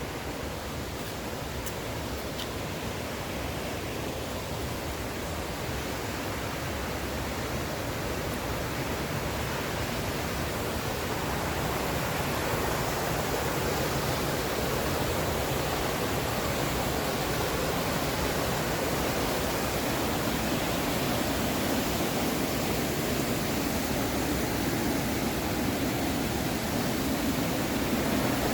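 Rushing water of a cascading mountain creek, a steady even roar that grows gradually louder.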